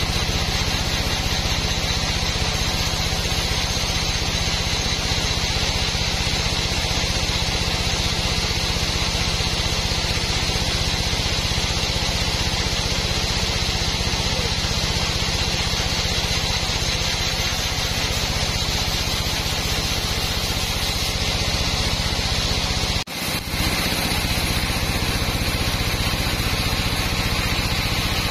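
Large band sawmill running and sawing lengthwise through a squared hardwood log: a steady machine drone with a thin high whine over it. There is one short break about three quarters of the way through.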